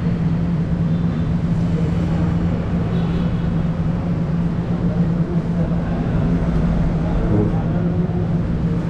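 Steady low mechanical hum with a constant rumbling noise underneath, unchanging throughout, like a motor or vehicle running.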